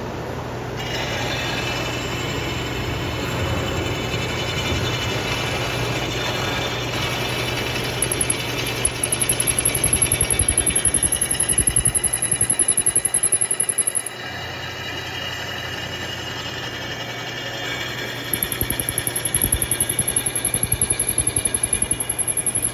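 Bridgeport milling machine running, a steady motor hum with a whine of several held tones. A rapid fluttering noise comes in twice, for several seconds each time. The uploader says this flutter was not heard at the live demonstration, so it comes from the recording and not from the mill.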